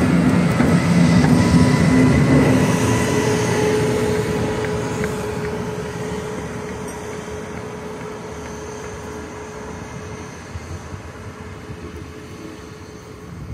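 A train running on the rails, loudest in the first couple of seconds, then fading steadily as it moves away, with a steady tone lingering over the dying rumble.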